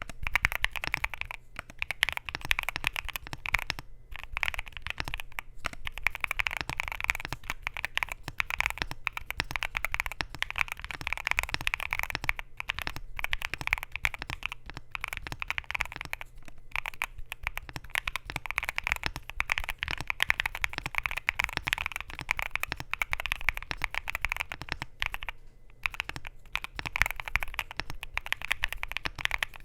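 Continuous fast typing on a Luminkey LK65 mechanical keyboard with Gateron Sylva switches, a polycarbonate plate, a silicone gasket mount and Cherry-profile PBT keycaps: a dense stream of keystroke clicks, broken by a few short pauses.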